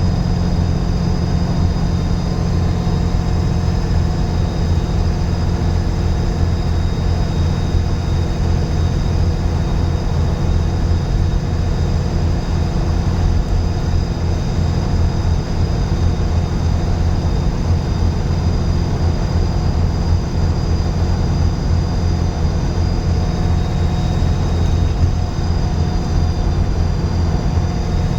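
Dennis Trident 2 double-decker bus running at a steady pace: a low engine drone with its turbocharger's high, steady whistle over the top, which is very loud on this bus. The whistle dips slightly in pitch near the end.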